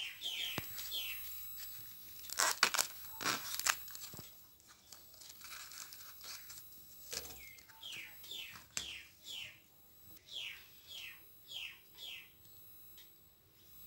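Banana-flower florets being torn and snapped loose from the bracts by hand, with sharp crisp crackles clustered about two to four seconds in. Behind it, a bird calls over and over with short falling notes.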